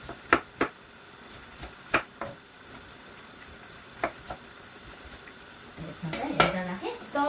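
Sharp clinks and knocks of kitchenware, mostly in pairs about a third of a second apart, three pairs in all, with a louder single knock about six seconds in. A voice comes in near the end.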